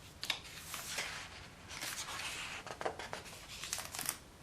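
Pages of a picture book being turned: paper rustling with several soft clicks.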